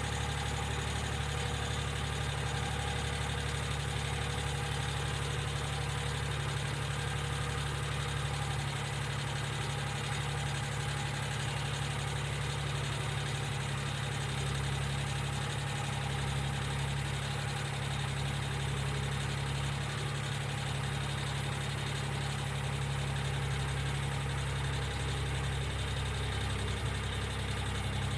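1995 Geo Metro engine idling steadily, with the light ticking of noisy hydraulic lifters.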